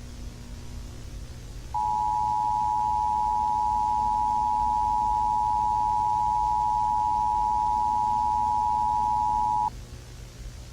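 Emergency Alert System attention signal: two steady tones sounding together, near 853 and 960 Hz, starting about two seconds in, holding for about eight seconds and cutting off abruptly. A low hum and hiss runs underneath.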